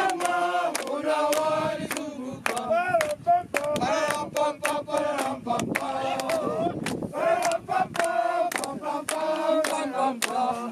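A group of men and women singing together, clapping their hands to a steady beat about twice a second.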